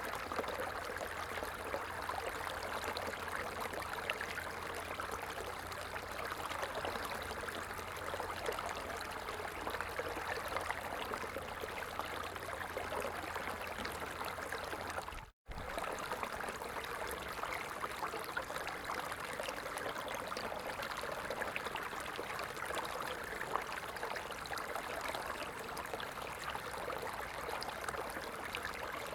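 A stream's water running and babbling steadily. The sound cuts out for a split second about halfway through, then carries on.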